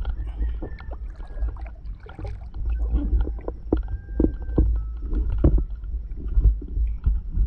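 Gillnet being hauled over the side of a small fishing boat and fish picked from it: a low rumble with scattered knocks and rustles of net against the boat's hull and outrigger.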